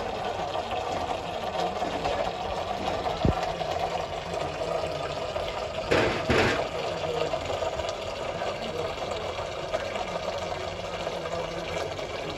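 Used engine oil draining from a Toyota 1KD diesel's sump in a thin stream into a metal drain pan, splattering steadily into the pooled oil. About six seconds in there is a brief, louder noise.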